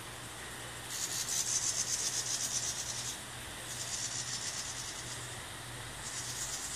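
Insects buzzing in high, rasping, pulsing bursts: one long burst of about two seconds starting about a second in, then several shorter ones.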